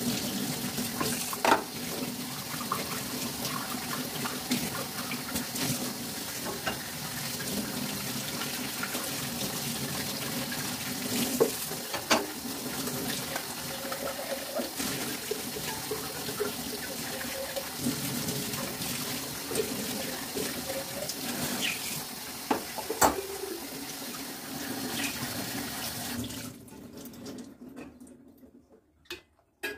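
Water running from a tap into a sink, with a few sharp knocks and clinks over it; the water is shut off near the end, leaving a couple of clicks.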